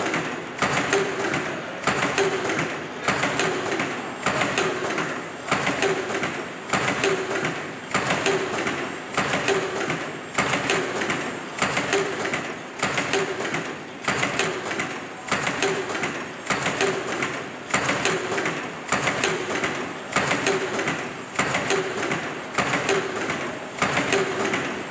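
Automatic flat face mask production machines running: a steady mechanical clatter with a regular beat of clicks a little faster than once a second. A thin high whine comes in a few seconds in.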